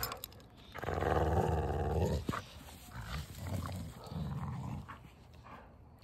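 Dogs growling while tugging on a rope toy: one long growl about a second in, then a few shorter, quieter growls.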